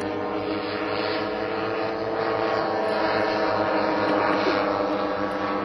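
Radio-controlled model airplane's engine and propeller droning steadily in flight, its pitch wavering slightly, a little louder in the second half.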